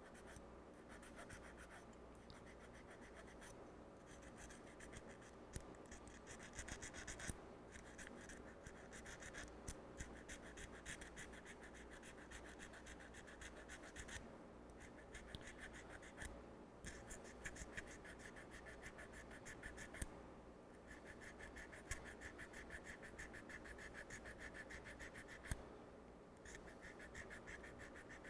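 Small hand file scraping back and forth on a TV remote control's coiled battery spring contact, filing it clean of corrosion so it will carry power. The sound is faint, quick fine strokes in runs broken by short pauses.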